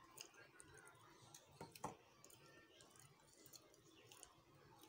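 Near silence with faint clicks and soft squishing of fingers mixing rice and curry on a steel plate; one slightly sharper click just under two seconds in.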